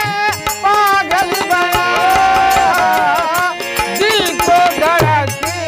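A man singing a Hindi film song in a wavering, ornamented voice, accompanied by a harmonium holding steady chords and a dholak drum beating a steady rhythm.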